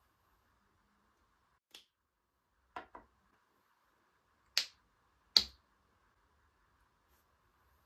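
Five short, sharp clicks or taps of small objects being handled. There is a quick pair a little under three seconds in, and the two loudest come about a second apart near the middle.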